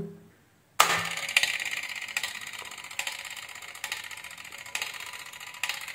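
Orbis T-11 analog staircase timer switched on: a sharp click about a second in as its solenoid pulls in, then the pendulum escapement ticking rapidly as the off-delay runs. The owner says the mechanism's sound is abnormal and its pendulum isn't swinging properly.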